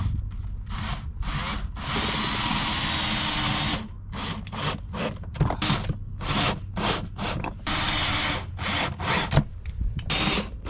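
Electric drill-driver driving screws to fix a PVC pipe socket to a rooftop tent's floor: one steady run of about two seconds, then a string of short bursts.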